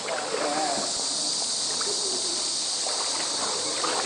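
Steady high-pitched insect chorus from the surrounding jungle, with faint voices talking underneath.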